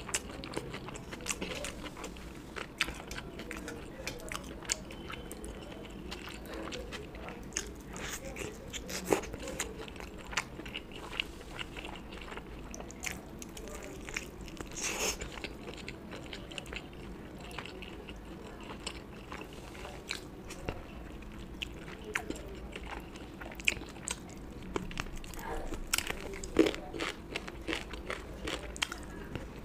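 A person eating close to the microphone: steady chewing with many irregular sharp mouth clicks and crunchy bites, a few of them louder than the rest.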